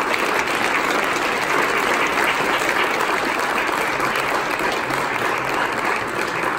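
A crowd applauding: a steady round of clapping that holds at one level throughout.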